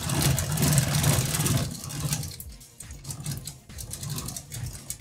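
Fabric green screen being wound up on its chain-driven ceiling roller, the chain pulled hand over hand: a fast, continuous run of clicks and rattling, louder for the first two seconds or so.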